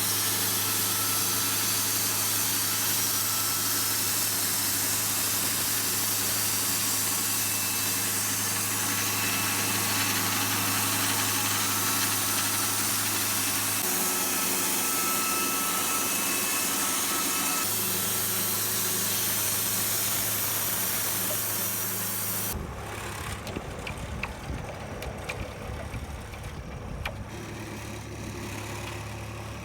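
Wood-Mizer LT40 portable band sawmill running steadily, its engine hum under a strong high hiss. About three-quarters of the way through, the sound changes abruptly to a quieter, lower engine hum with rumble.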